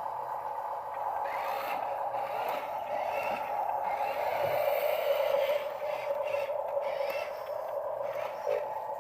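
Small electric motor and plastic gears of a Huina toy RC dump truck whirring steadily, the pitch dipping slightly about halfway through.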